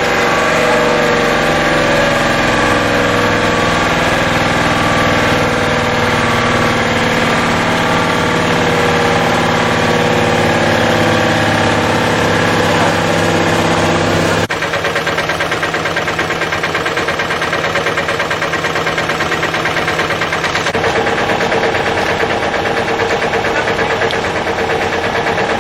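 A large engine running steadily, with a sudden change in its sound about halfway through.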